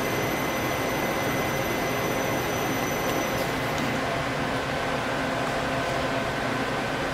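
Doosan Puma 2500LSY CNC lathe running under power with a steady mechanical hum and several thin high whines. The high whines cut off about three and a half seconds in, and a lower steady whine comes in about a second later.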